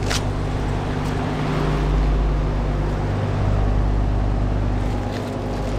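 Two Daikin DZ18TC 5-ton heat pump outdoor units running in cooling mode: a steady low compressor hum with the air rush of the condenser fans.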